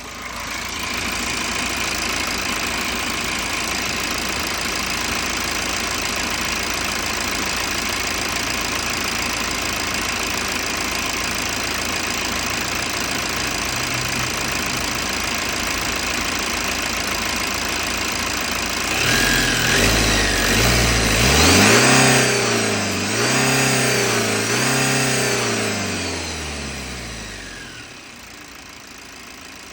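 BMW N47 four-cylinder diesel engine in a 320d E92 idling steadily, then revved up and down several times about two-thirds of the way through before dropping back.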